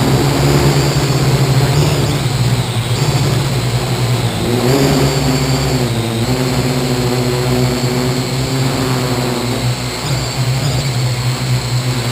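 Parrot AR.Drone 2.0 quadcopter's electric motors and propellers whirring steadily in flight while carrying a top-mounted GoPro, the pitch dipping and rising a few times as the motors change speed, around four and a half and six seconds in.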